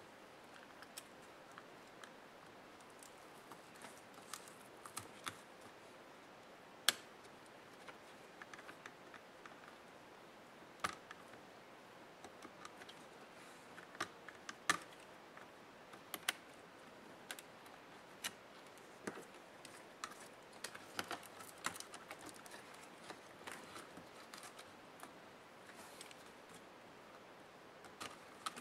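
Small irregular clicks and taps of hand tools and plastic laptop parts as an HP Pavilion 15 laptop is taken apart, with a few sharper clicks standing out.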